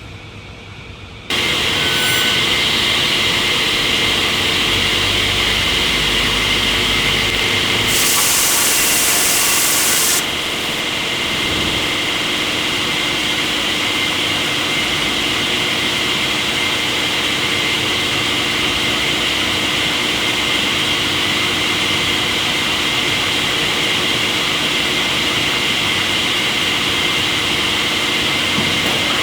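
Sawmill machinery running loud and steady after starting abruptly about a second in, with a sharp hiss for about two seconds near the middle.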